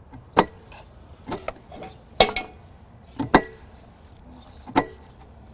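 About six sharp knocks and clinks of kitchen utensils at irregular intervals during food preparation, each with a brief ring.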